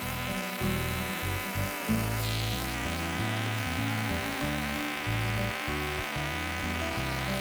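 Two-stroke engine chainsaw buzzing steadily, mixed with background music that has a stepping bass line.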